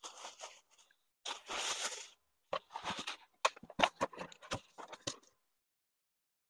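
Bubble wrap rustling and crinkling, then a series of short knocks and scrapes from a cardboard box and packing paper being handled.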